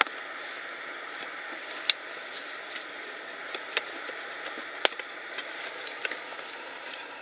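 Wood fire burning with a steady hiss and irregular sharp pops and crackles every second or so.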